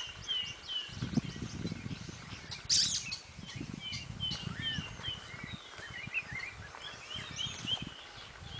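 Birds chirping in a run of short, repeated down-curving notes at about two a second, with one louder, harsher note about three seconds in and more varied chirps near the end. Low rustling and thumps of movement through undergrowth sound under them in the first few seconds.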